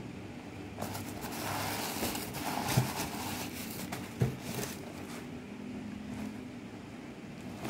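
Handling noise from a Skechers Arch Fit foam clog being turned over in a cardboard shoebox: tissue paper rustling for a couple of seconds, with two sharp knocks, about three and four seconds in. A low steady hum runs underneath.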